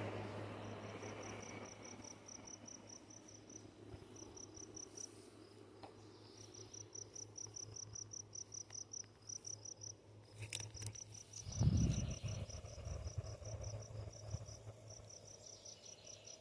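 Cricket chirping faintly in a steady, high-pitched run of pulses, about four or five a second, over a steady low hum. A brief low rumble comes about twelve seconds in.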